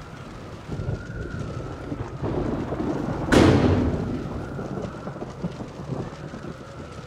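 Thunder: a low rumble builds, then a loud crack about three seconds in that rolls away over a second or two.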